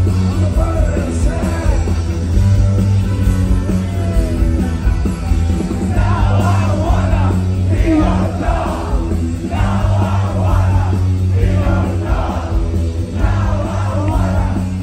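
Live rock music from a band with a chamber orchestra, heard from inside the audience, with a heavy steady bass line. From about six seconds in, a voice sings in short repeated phrases over it.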